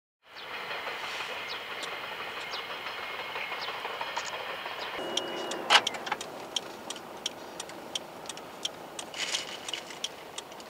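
Steady road noise inside a moving car. From about five seconds in, a regular ticking of about three clicks a second starts, typical of a turn-signal indicator.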